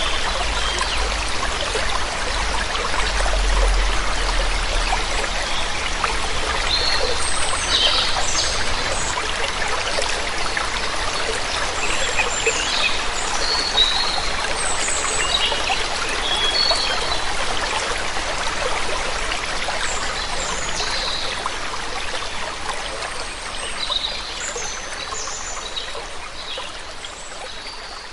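Waterfall running steadily, with short high bird chirps scattered through it. The whole sound slowly fades down toward the end.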